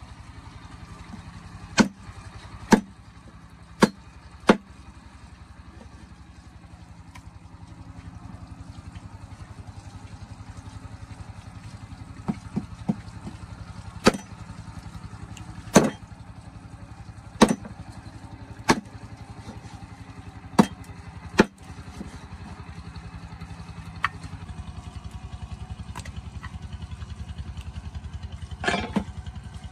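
A small engine running steadily with a low rumble, with about fifteen sharp knocks or clacks scattered irregularly over it.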